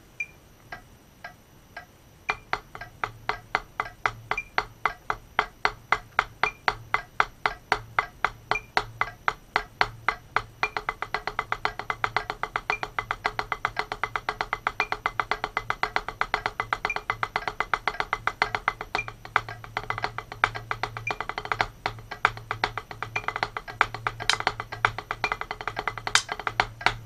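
Drumsticks playing double strokes on a small hard-rubber micro practice pad: a fast, even stream of sharp taps that starts a couple of seconds in and grows denser and louder about ten seconds in. A metronome ticks faintly at 115 BPM underneath.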